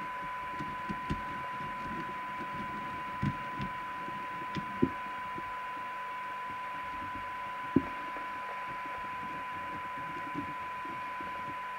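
Rotel RVC240 FM CB radio's speaker playing one steady test tone over receiver hiss: the signal generator's modulation received and demodulated while the receive coils are aligned. A few light knocks from handling the set, the loudest about five and eight seconds in.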